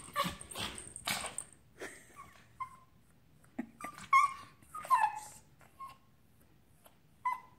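Excited Japanese chin dog giving a string of short, high whines and yips, about six, after a second or so of noisy huffs at the start.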